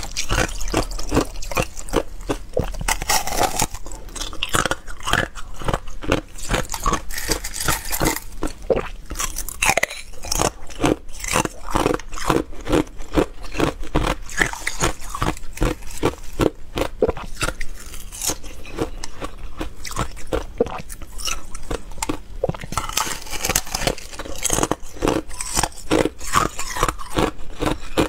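Thin ice being bitten and crunched close to the microphone: a dense run of sharp cracks and crunches, several a second.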